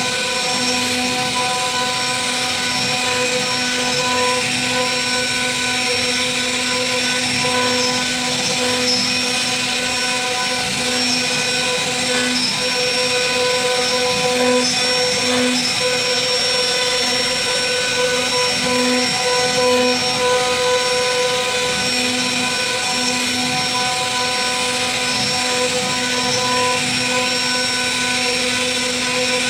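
CNC router spindle running with a steady whine while its bit carves a wooden relief panel. A lower hum swells and dips every second or so as the cutting load changes, over a constant cutting hiss.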